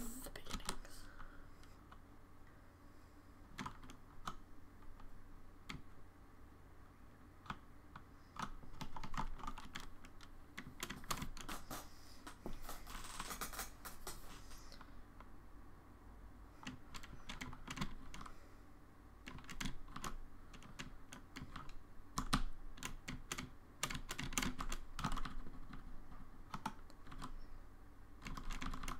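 Typing on a computer keyboard, recorded for a microphone test: irregular bursts of keystrokes with short pauses between them.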